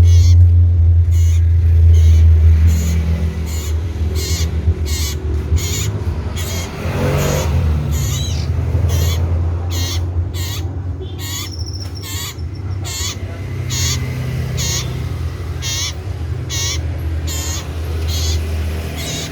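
A cipoh (iora) calling loudly and repeatedly, short sharp notes about twice a second, over a low rumbling hum that is loudest for the first few seconds.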